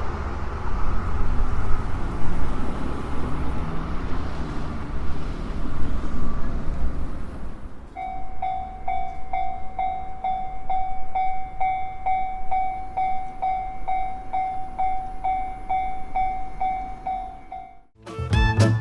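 A train rumbles across the level crossing and fades away over the first eight seconds or so. Then the crossing's electronic alarm rings clearly, a repeated pitched tone about twice a second, until it stops abruptly near the end.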